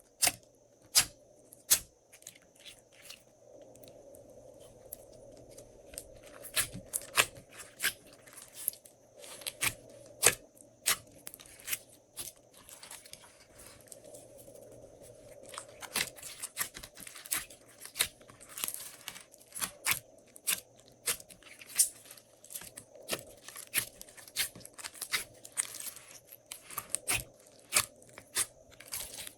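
Glossy slime being worked by hand with random add-ins mixed in, giving irregular sticky clicks, pops and crackles, a few each second.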